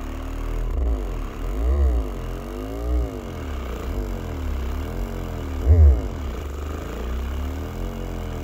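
Sundown Powersports 8-inch marine subwoofer, held unmounted, playing a bass test track that sweeps up and down in pitch over and over, its cone moving far in and out. The bass swells loudest about two seconds in and again near six seconds.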